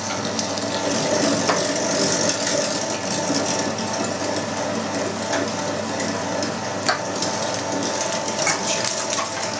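Electric meat grinder running steadily, mincing semi-lean pork through a 6 mm plate as the meat is pushed down the feed tube, with a few light clicks.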